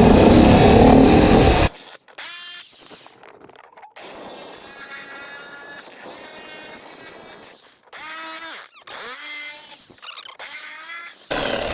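Power tool cutting out an opening for a socket. It runs loudly for about two seconds and then stops. Fainter whining, pitched sounds follow, and the tool cuts loudly again near the end. Afterwards it is called a bit noisy.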